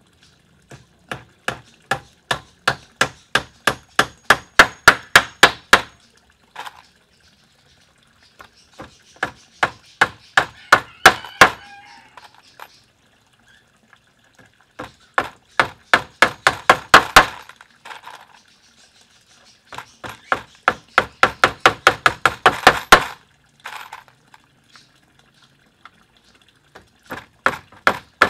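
Hammer driving nails into pallet-wood deck boards. The blows come in quick runs of about three or four a second, each run growing louder, with five runs and short pauses between them.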